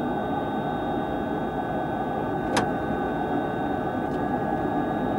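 Cockpit background noise of a DC-9 airliner on approach: a steady rush of air and engine noise with a few faint steady high tones over it. One sharp click about two and a half seconds in.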